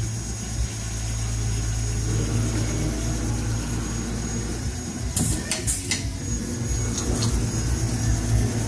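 Hardinge CNC turret lathe running a cut: a steady low machine hum with a few higher tones. A handful of sharp clicks and clatters come about five to six seconds in, and two more follow a second later.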